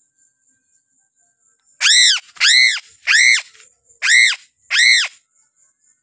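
A piping crow (Sulawesi's black-and-white crow) giving five loud calls in about three seconds, each arching up and then down in pitch.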